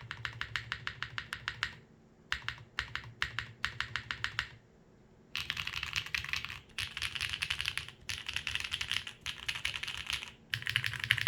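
Mechanical keyboard with stock Gateron Quinn tactile switches, an aluminium plate and GMK doubleshot ABS keycaps being typed on: two runs of evenly paced keystrokes, then from about five seconds in faster, denser typing in several bursts with short pauses.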